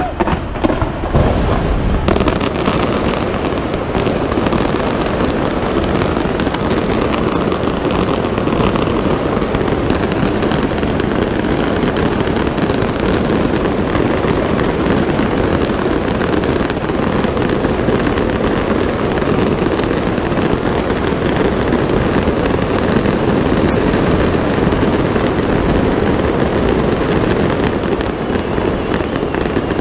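Large fireworks display fired from the Burj Khalifa: a dense, unbroken barrage of bangs and crackles that blend into one continuous rumble.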